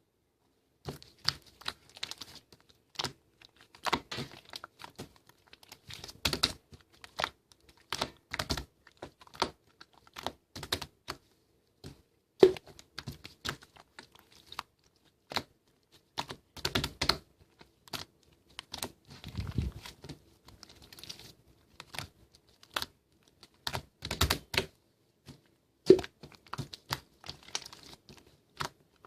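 Slime being played with by hand, making irregular sharp clicks and little pops, several a second, with a couple of louder snaps.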